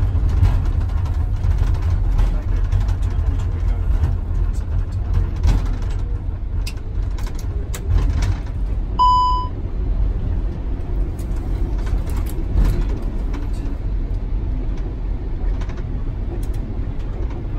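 Airbus A380 cockpit during the landing rollout: a steady low rumble of the airliner rolling down the runway, with scattered clicks of switches being set on the panels. A short electronic beep sounds once, about nine seconds in.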